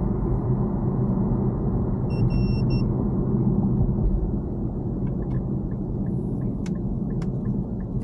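Cabin noise of an Infiniti M37S under way: a steady low rumble of its 3.7-litre V6 and the road. The engine is pulling without an obvious misfire after a coil pack was replaced. A little over two seconds in comes a short electronic beep from the plugged-in code scanner.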